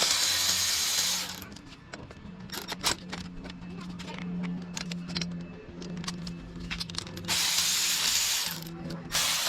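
A power tool runs in three bursts, about a second and a half at the start, just over a second near the end and a short one at the very end, spinning nuts and bolts off the engine. Clicks of tools and parts being handled fall between the bursts.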